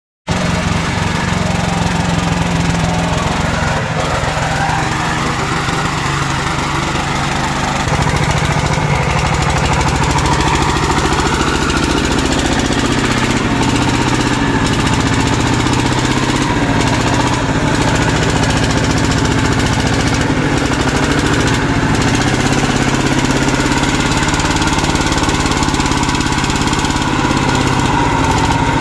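Single-cylinder diesel engine of a công nông two-wheel tractor running under load with a fast, even chugging as it drags its cart through deep mud.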